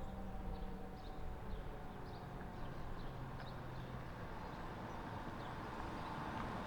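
Distant outdoor warning siren's steady tone fading out within the first second or two. What is left is a low outdoor background rumble and a small bird's short chirps repeating about once a second.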